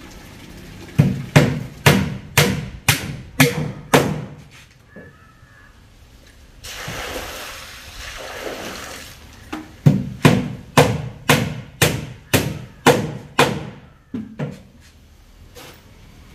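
Hammer driving nails into wooden planks: a run of about seven sharp blows, two a second, then a few seconds of rough rustling, then about nine more blows at the same pace, the last ones lighter.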